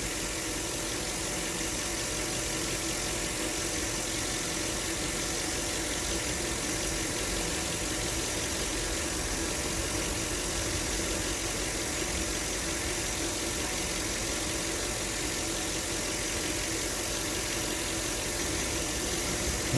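Land Rover LR3's 4.4-litre V8 idling steadily. The misfire is cured after an injector connector was reseated.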